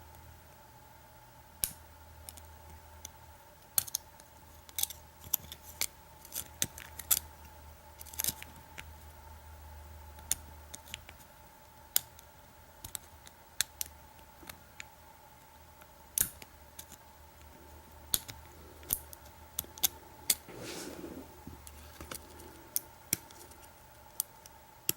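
Lock pick and tension wrench working the pins of an American Lock 5200 padlock during single pin picking: irregular sharp metallic clicks and ticks, sometimes several a second, over a steady low hum.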